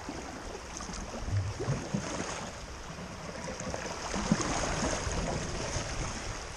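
Rushing creek water around a solo open canoe, with paddle strokes splashing in the current; the loudest splash comes about four seconds in.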